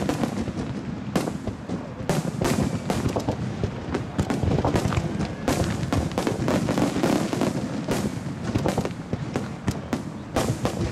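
Fireworks display at full pace: aerial shell bursts and a ground-level starmine barrage firing together. Rapid, overlapping bangs run on without a break.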